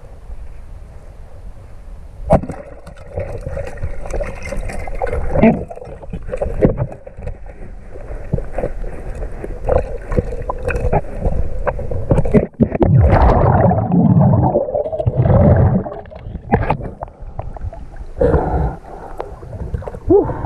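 Muffled underwater water noise heard through an action camera's underwater housing while a spearfisher swims: a steady low rumble with gurgling and many sharp clicks and knocks, and a louder churning stretch past the middle. Near the end the sound comes up above the water as he surfaces.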